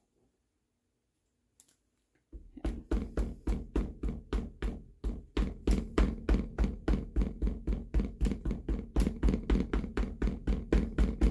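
A red ink pad tapped quickly and repeatedly onto a tree stamp held on the acrylic lid of a stamping platform to ink it, about four or five sharp taps a second, starting a couple of seconds in.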